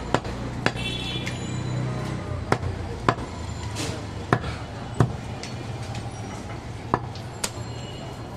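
Long butcher's knife chopping goat meat against a wooden stump block: about eight sharp, irregular knocks spread across the few seconds.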